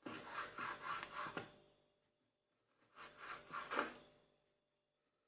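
Kitchen knife sawing through an orange on a cutting board: a run of short scraping strokes, then a second short run about three seconds in.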